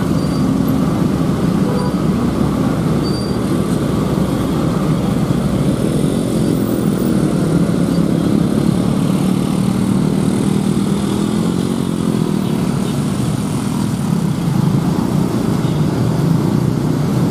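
Steady engine noise of slow, jammed traffic, with motorcycles and cars crawling past at low speed. A low engine hum runs throughout without any sharp events.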